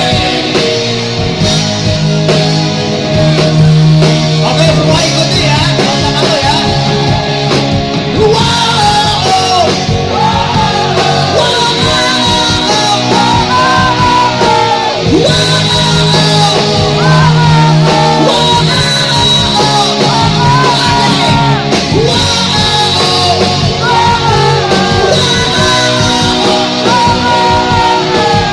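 Rock song with a singer over a full band, loud and continuous.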